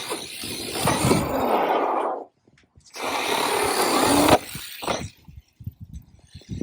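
Hosim X25 1/8-scale RC truck's tyres churning over loose ground in two crunching bursts of about two seconds each, the second cutting off suddenly, followed by scattered light clicks.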